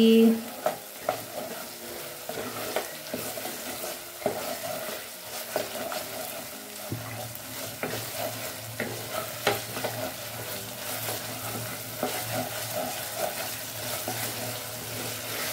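Wooden spatula stirring and scraping a thick spice paste as it fries in oil in a metal pot: a steady sizzle broken by frequent irregular knocks and scrapes of the spatula against the pot.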